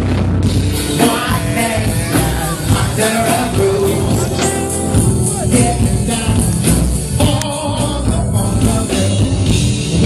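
Live funk band playing with singing over a steady beat and heavy bass.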